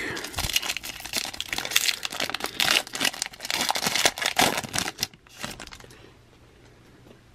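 Foil wrapper of a Topps baseball card pack being torn open and crinkled by hand, a dense crackly rustle that dies away after about five seconds.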